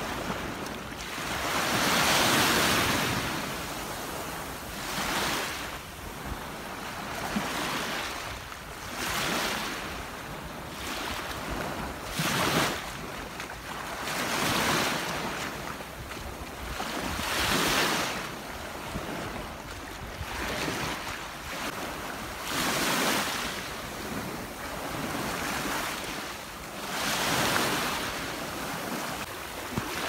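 Small ocean waves washing in on the shore, swelling and fading every few seconds, with wind rumbling on the microphone.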